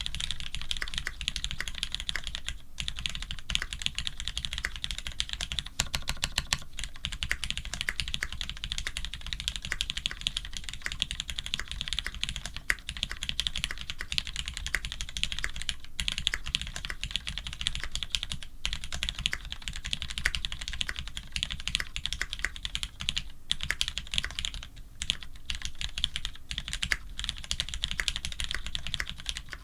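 Steady typing on a Monstargear XO V3 custom mechanical keyboard with lubed Cherry Retooled Black linear switches, an FR4 plate and GMK keycaps, the keystrokes coming fast and continuous with a few brief pauses.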